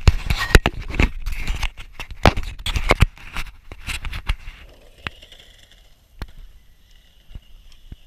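Loud clattering and scraping for about the first three seconds, then an electric skateboard rolling on a concrete path, its wheels clicking over the slab joints about once a second.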